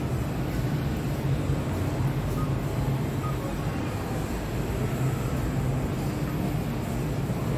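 Steady low hum and rumble of indoor mall ambience, with no distinct events.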